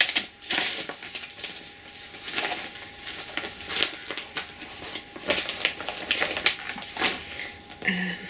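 Rustling and irregular soft clicks of cross-stitch projects and a clear plastic project bag being handled on the lap.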